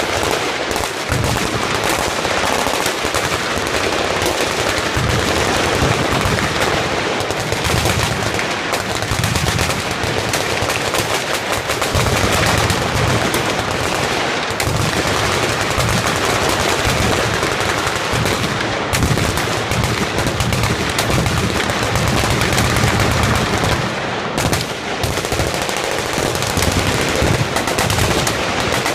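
Machine guns and other firearms firing all at once along a range's firing line: a continuous, dense stream of overlapping shots with no break.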